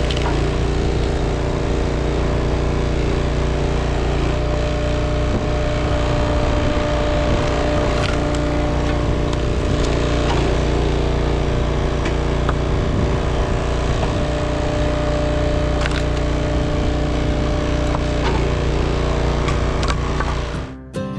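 Gas engine of a log splitter running steadily, with scattered cracks of wood splitting; it cuts off near the end.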